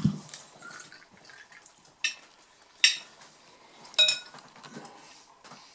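Three sharp, ringing clinks of glass and tableware about two, three and four seconds in, after a soft thump at the start, over the faint sound of aquavit being poured from a bottle into a shot glass.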